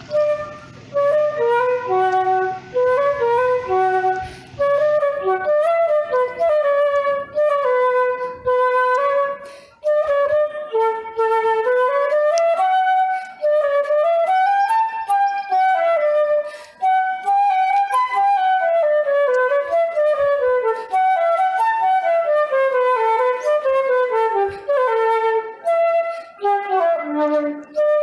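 Background music: a quick, running flute melody, with a low sustained drone under it for the first few seconds.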